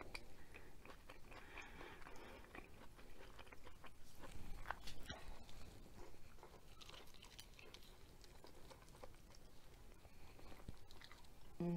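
A person biting and chewing a piece of chicken curry close to the microphone: soft mouth sounds with a few sharp clicks around the middle.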